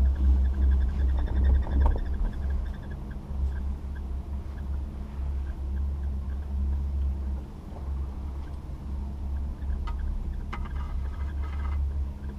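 Wind rumbling on the microphone of a rider on a moving chairlift, with light clicks and rattles from the chair in the last few seconds.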